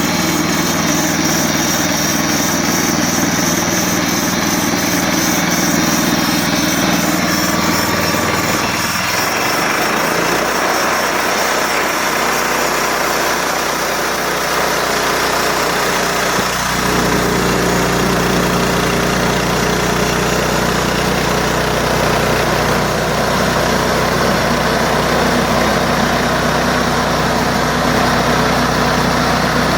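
Gasoline engine of a band sawmill running steadily. Its low tone drops out about nine seconds in and comes back strongly around sixteen and a half seconds.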